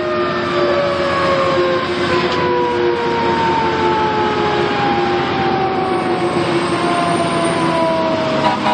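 Fire engine siren winding down, its pitch falling slowly, over the truck's engine and road noise.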